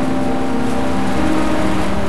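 Background music of long held notes that shift in pitch every second or so, over a steady hiss.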